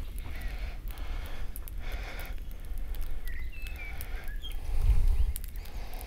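Freshly lit campfire of spruce twigs and pine kindling crackling with scattered sharp pops. Faint short bird chirps sound above it, and a low rumble swells about five seconds in.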